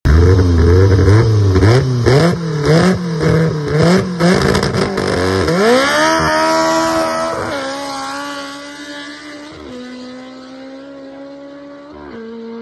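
Honda CRX with a stock-block Honda K24A3, Type R head, cams and individual throttle bodies, revved up and down repeatedly on the line. About five seconds in it launches, its pitch climbing and dropping back at about three upshifts as it pulls away and fades.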